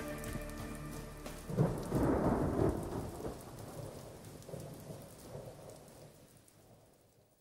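A thunder-and-rain storm effect at the close of a pop recording. The last held chord dies away, then about a second and a half in a roll of thunder breaks over steady rain. Both fade out to silence near the end.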